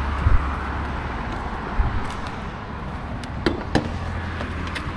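Steady outdoor noise with a low rumble on the microphone, and two short sharp clicks about three and a half seconds in as a hand works the bonnet latch on a Mitsubishi Lancer Evolution X.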